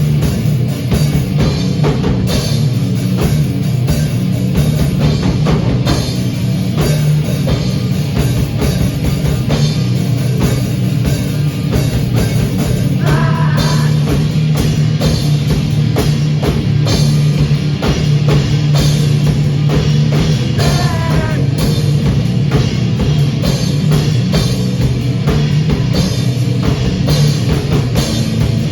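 Rock band jamming: drum kit and guitar playing loudly and continuously.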